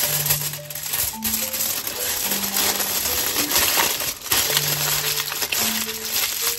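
Aluminium foil crinkling as hands fold and press it around a sweet potato, a dense steady crackle. A simple background tune of single notes plays underneath.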